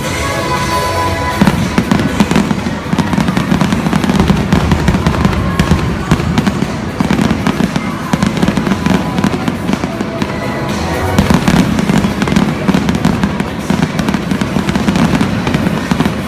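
Fireworks going off in a rapid, dense run of bangs and crackles with no pause.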